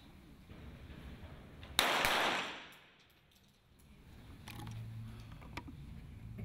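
A single shot from a .22 rimfire sport pistol about two seconds in, with a tail that dies away over about half a second, followed by a couple of faint clicks.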